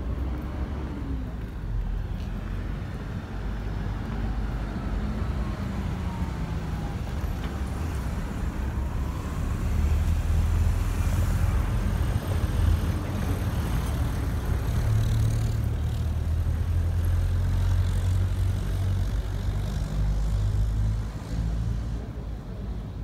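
Motor vehicle engines running in the street: a steady low rumble that grows louder about ten seconds in and eases off near the end.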